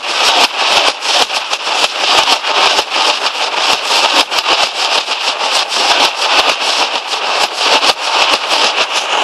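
Nashik dhol ensemble: many large barrel dhols beaten together in a fast, unbroken rhythm. The strokes are dense and sharp, with a bright, crackling top.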